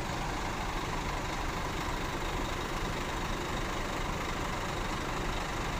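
Large diesel bus engine idling steadily.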